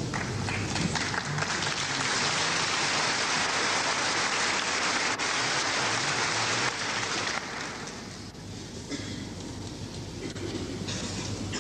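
Audience applauding, strong for about seven seconds and then thinning out.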